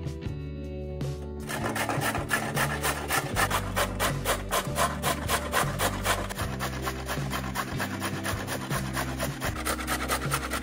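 A carrot being grated on a stainless steel box grater over a wooden board: quick, even rasping strokes, about five a second, starting about a second and a half in. Background music plays underneath.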